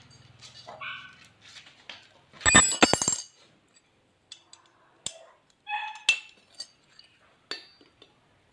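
Metal tools and parts clinking and clattering as they are handled, with a loud burst of clattering about two and a half seconds in, then scattered light clicks and taps.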